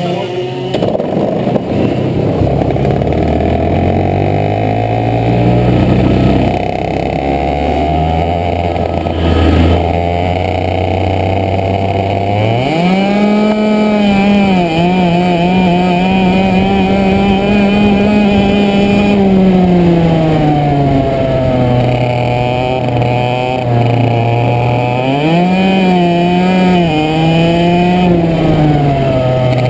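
100cc two-stroke go-kart engine, first running at low, uneven revs, then about halfway through revving up hard and holding high revs on the track. It eases off once and climbs again before easing near the end.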